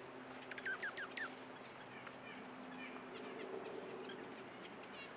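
Small birds chirping: a quick run of about five sharp, falling chirps about half a second in, then scattered fainter chirps.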